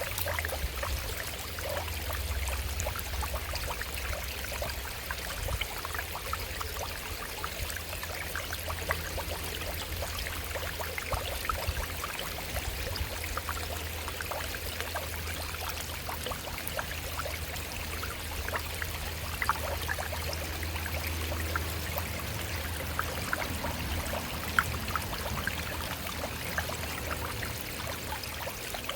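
Shallow stream running over rocks: a steady rush of water with many small splashes and trickles, over a low steady rumble.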